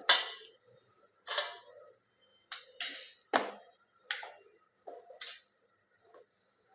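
A spoon knocking and scraping against kitchen utensils while spices are spooned into a pot, about nine short separate clinks and scrapes, some with a brief ring.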